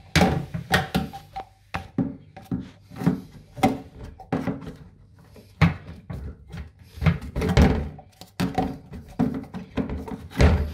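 Plastic toilet outlet pipe with a ribbed seal ring being worked into the back outlet of a ceramic toilet bowl: a run of irregular thunks and knocks as plastic bumps and rubs against the porcelain.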